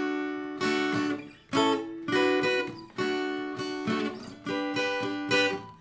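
Acoustic guitar strumming a short chord riff on the top strings around a D chord: about seven separate strums, each left to ring.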